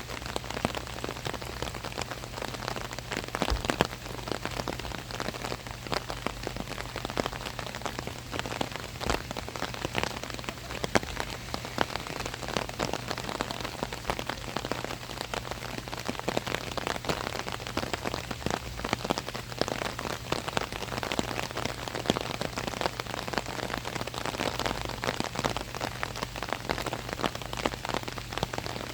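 Rain falling on an umbrella overhead: a dense, steady stream of drops striking the canopy, with many sharp individual hits. A faint steady low hum runs underneath.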